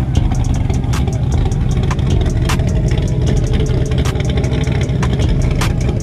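Red C6 Corvette's V8 running steadily at idle through its quad-tip exhaust, a deep continuous rumble. Sharp faint clicks recur through it, the strongest about every second and a half.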